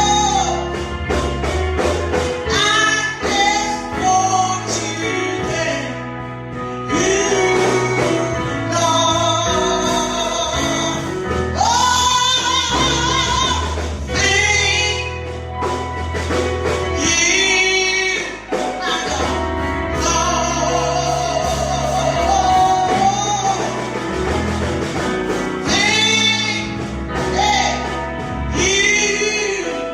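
Gospel song: sung vocal lines with vibrato over a band with a steady bass line.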